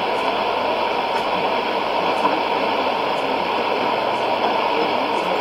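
Shortwave AM reception on a Sony ICF-2001D receiver: a steady hiss and static from a weak signal, with no clear speech coming through and a faint tick about once a second.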